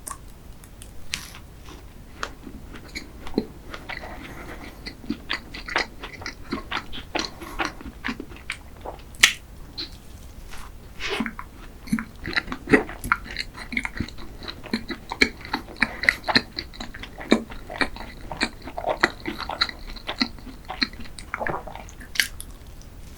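Close-miked eating of a cream dessert: a person bites and chews, with many short wet mouth clicks and smacks and some crunching.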